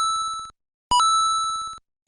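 Animated Japanese level-crossing warning bell ringing 'kan-kan': a bright ding repeating about once a second, each stroke ringing on and fading before the next.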